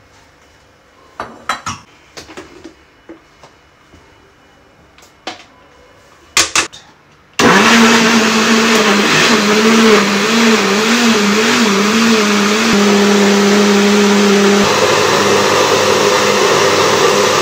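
A few light knocks and clinks, then about seven seconds in a countertop blender switches on and runs loudly and steadily, grinding oats and egg into pancake batter; its motor hum wavers at first, then settles.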